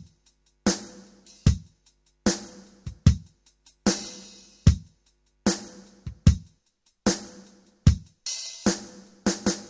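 Drum kit playing a slow, steady rock beat, bass drum and snare hits about every 0.8 s, each ringing out. Near the end come a few quicker hits and a cymbal wash, leading into the song.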